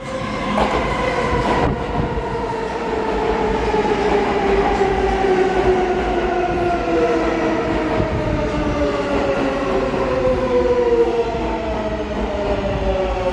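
R143 subway train pulling into the station and slowing: its AC traction motors whine in a couple of steady tones that fall slowly in pitch as it brakes, over the low rumble of the steel wheels on the rails, with a couple of sharp clicks near the start.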